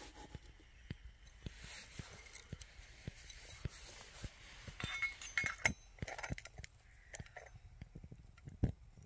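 Small metal lid of a titanium alcohol stove clinking against the stove as it is picked up and set on the burner to snuff the flame, with a cluster of ringing clinks about five seconds in and another knock near the end. Small sharp ticks run throughout.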